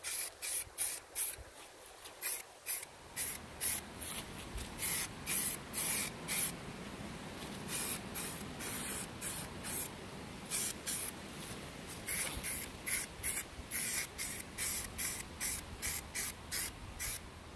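Aerosol spray-paint can spraying in quick short bursts, about two or three a second, with a couple of brief pauses between runs.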